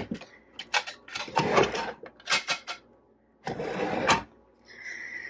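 Wooden drawer of an antique writing desk being pushed shut: a series of sliding scrapes and knocks over the first couple of seconds, then one more scrape after a short pause.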